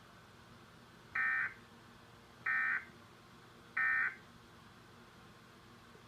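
Emergency Alert System end-of-message data burst sent three times: three short, buzzy digital squawks about 1.3 seconds apart, the coded signal that closes an alert.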